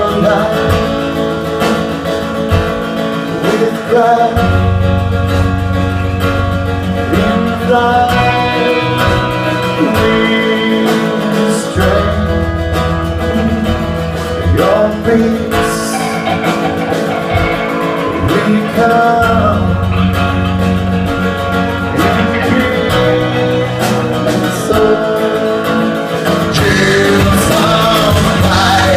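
A band playing a song with electric or acoustic guitar to the fore over a bass line that comes and goes every few seconds, in a passage without clear sung words.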